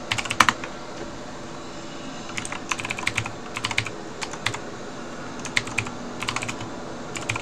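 Computer keyboard keys being pressed in short bursts of a few quick clicks, with pauses of about a second between the bursts.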